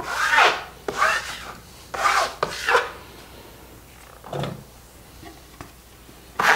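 Drywall knife scraping joint compound across mesh on a plaster wall, in about five quick strokes over the first three seconds, then one fainter stroke.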